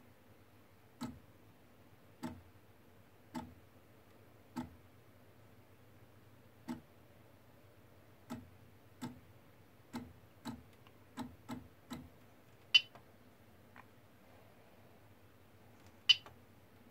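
Short knocks from a CoreXY 3D printer's stepper-driven carriage making a series of brief moves, about a dozen irregularly spaced. Near the end of the run come two much sharper, louder clicks. A faint steady low hum lies underneath.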